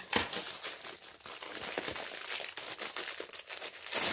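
Plastic packaging crinkling and tearing as it is cut and pulled open, a steady run of sharp crackles that stops abruptly at the end.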